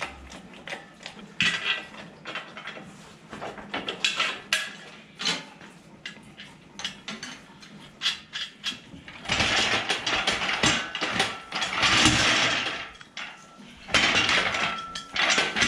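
Scattered metal clicks and clanks from a red hydraulic shop crane (engine hoist) as its pump handle and boom are worked, then, past the halfway point, a loud rough rattle of its small caster wheels as the crane is pushed across the barn floor, with a brief pause before the rattle resumes.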